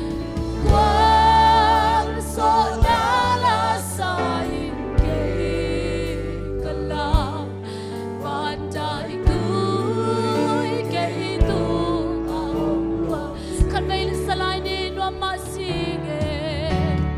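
Gospel worship song: sung voices over sustained bass notes, with a drum hit about every two seconds.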